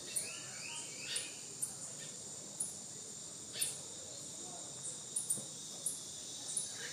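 Steady high-pitched insect chorus, with short sharp ticks and brief rising chirps scattered about once a second.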